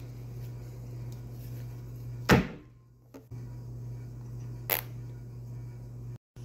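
Steady low electrical hum with a loud sharp click about two seconds in. The hum cuts out for about a second after it, then a softer click comes near five seconds.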